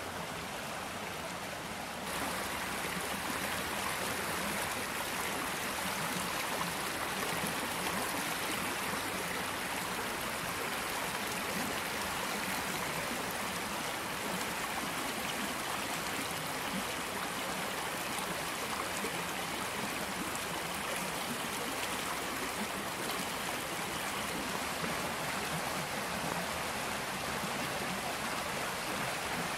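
Creek water running steadily, an even hiss of flowing water with no break; it steps up louder about two seconds in.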